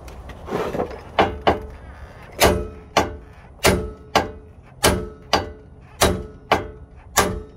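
A sledgehammer striking the steel front suspension about eleven times, roughly two blows a second, each a sharp metallic clang with a short ring. The blows are driving out the old lower ball joint.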